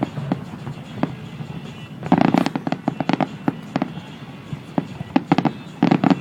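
Fireworks going off: scattered single bangs, then rapid clusters of sharp cracks and pops about two seconds in and again near the end.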